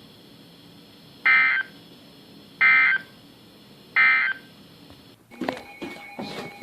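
Emergency Alert System end-of-message data bursts: three short bursts of high-pitched digital data tone, about a second and a third apart, signalling that the severe thunderstorm warning message has ended.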